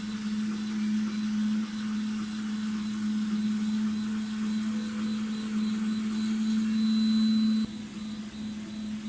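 Large FDM 3D printer running, a steady machine hum with a faint high whine; the level drops suddenly near the end.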